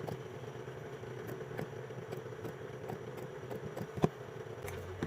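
Steady low machine hum with light ticks and taps of small metal parts, and one sharper click about four seconds in, while nickel strips are soldered onto lithium battery cells.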